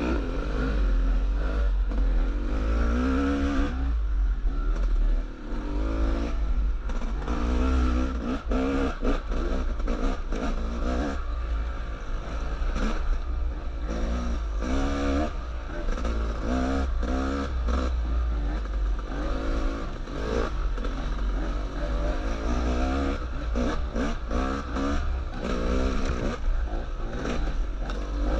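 Two-stroke enduro dirt bike engines revving up and dropping off again and again as the riders work the throttle through tight forest single-track, heard close up from on board one of the bikes.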